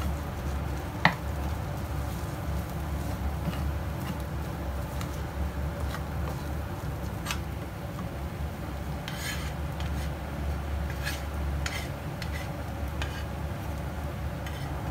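Wooden spatula stirring and scraping rice and scrambled egg around a nonstick frying pan, with sharp taps of the spatula against the pan now and then, the loudest about a second in. A steady low hum runs underneath.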